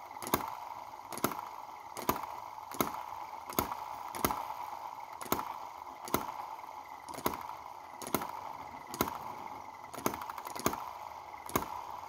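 Miniature single-cylinder four-stroke petrol model engine running very slowly: a sharp click a little more than once a second over a steady whir. It is held at this low speed by tweezers pressing on its valve spring.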